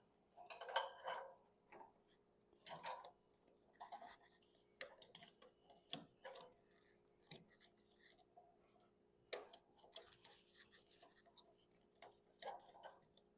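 Faint, irregular rubbing and scraping with a few light clicks: a rubber drive belt being worked by hand over the hydrostatic pump pulley and cooling fan of a riding mower.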